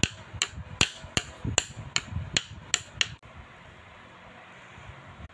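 About nine sharp taps of a hard object on a tabletop, in an even rhythm a little under three a second, stopping about three seconds in.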